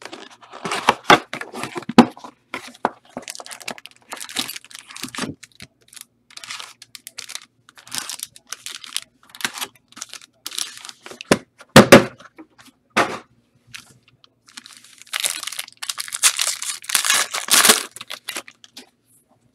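Foil trading-card pack wrappers tearing and crinkling, with cards and packaging being handled in many short rustles. There are two sharp knocks about twelve and thirteen seconds in.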